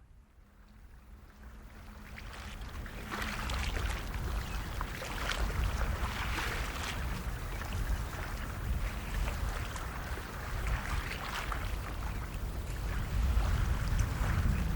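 Wind and rushing water ambience fading in from silence, with a deep low rumble and crackling throughout.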